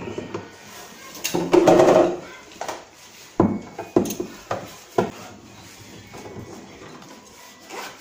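Hands handling the plastic interior cover panel of a Samsung two-door refrigerator: a loud plastic rattle about one and a half seconds in, then four sharp knocks about half a second apart.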